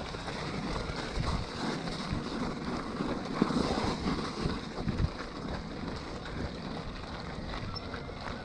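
Scott E-Genius e-mountain bike's plus-size tyres rolling over loose gravel, a steady crunching with frequent small clicks and rattles, and wind buffeting the microphone.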